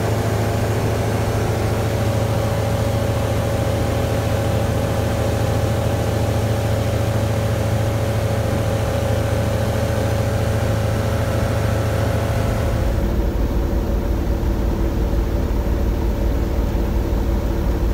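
Renault Kwid three-cylinder four-stroke car engine driving an ultralight's propeller in cruising flight, heard from inside the cabin as a steady drone with wind hiss. About two-thirds of the way through the hiss drops away, leaving a duller, lower engine drone. The engine is quiet enough to talk in the cabin without headsets.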